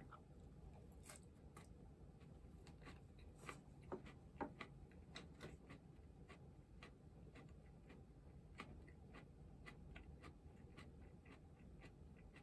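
A few soft knocks about four seconds in as a bowl is set down on a wooden tray, over faint, fairly regular clicking about two a second.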